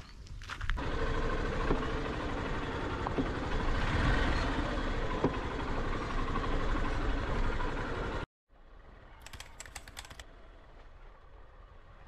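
A vehicle driving off-road along a rough dirt track: a loud, steady noise of the moving vehicle that cuts off abruptly about eight seconds in. After that comes a much quieter steady background with a short run of clicks.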